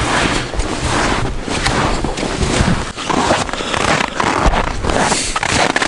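Footsteps crunching and scraping through snow, an uneven run of crackling steps with wind rumbling on the microphone.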